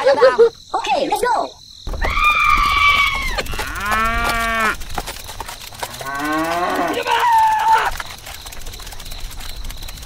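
A brief high chattering voice, then a cow mooing in several drawn-out calls over a low steady rumble.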